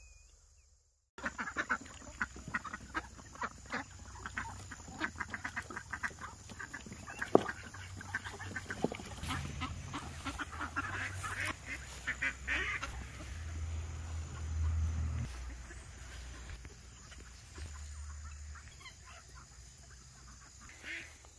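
Poultry calling: many short calls in quick succession, thinning out over the last several seconds.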